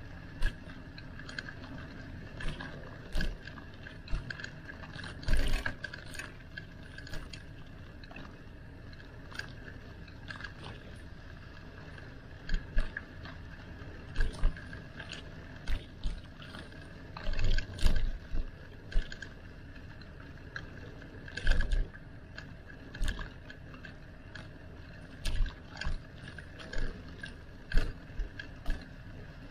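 Bicycle riding along a road, rattling with irregular sharp knocks and clicks over a steady background noise.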